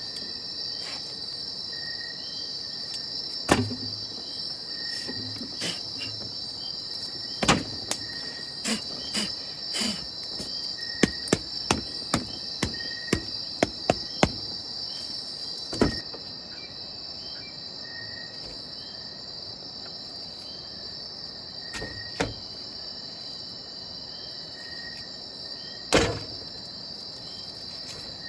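Steady high-pitched rainforest insect chorus of crickets, with a short chirp repeating about every two seconds. Over it come sharp knocks and taps, thickest in the first half and then a few spaced ones near the end.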